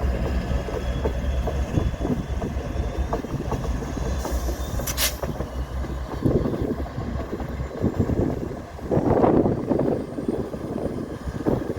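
Diesel freight train running past with a deep, steady low rumble, and a short hiss about five seconds in. From about six seconds in, gusts of wind buffet the microphone and grow loudest near the end.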